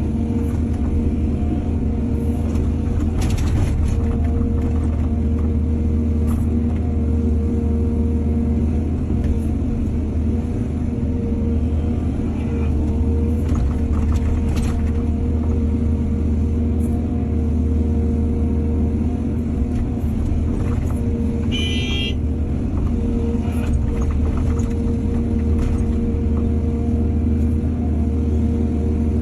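Excavator's diesel engine running steadily under load, with a few sharp knocks and one brief high squeal about two-thirds through.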